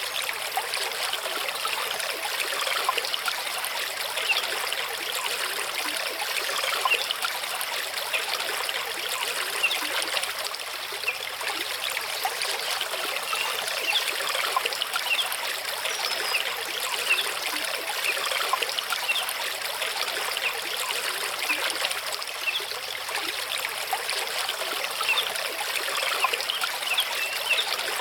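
Mountain stream running over rocks: a steady rush of water with many small trickling splashes.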